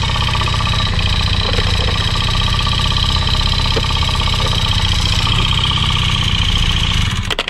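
Honda Dio scooter's small two-stroke engine idling steadily, now holding its idle with the original electric fuel valve refitted to the carburettor. It stops abruptly near the end.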